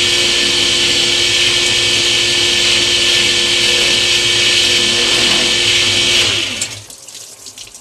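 Drill press running steadily, then switched off about six seconds in, its motor winding down with a falling pitch. Faint water trickling and dripping follows.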